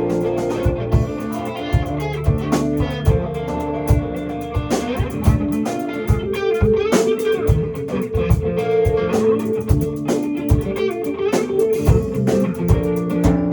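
Instrumental passage of a song: guitar over bass guitar, with a steady beat of low drum hits.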